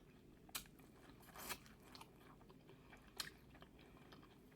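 Faint close-up mouth sounds of someone eating: a few short wet clicks and smacks of chewing, spaced about a second or more apart.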